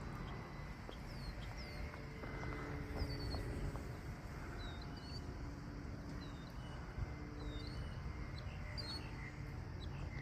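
Small birds chirping repeatedly in short chirps, over a steady low outdoor rumble.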